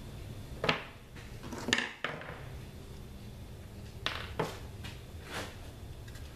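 Small hard items being handled and set down while the epoxy is got out for mixing: about five light clicks and knocks spread through, over faint rustling.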